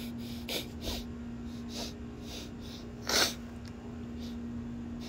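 A man sniffing and snorting through a nose stuffed up by allergies: several short sniffs, then a louder, sharper blast about three seconds in.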